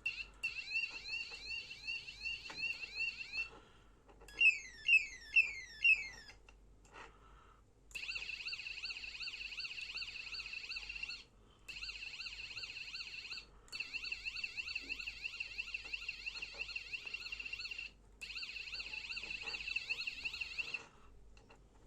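Electronic multi-tone bike horn cycling through siren patterns with a shrill, high tone. It opens with a repeated warbling chirp, then gives four loud falling sweeps around five seconds in. From about eight seconds it plays a fast, even warble that cuts out briefly three times.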